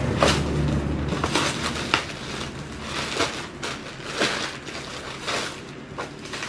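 Clear plastic packaging crinkling and rustling in irregular crackles as it is handled and pulled off a parcel box.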